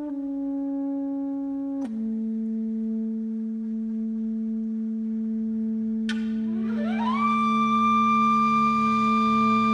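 Soprano saxophone and kaval improvising: one holds a long low note that drops a step about two seconds in, and about six seconds in the other enters with an upward glide to a high, held note.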